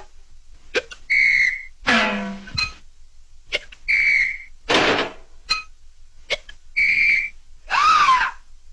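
Cartoon whistle sound effect: a short, high, steady whistle tone sounding three times, about three seconds apart, with shorter noisy effects and clicks in between. A wavering sliding tone comes near the end.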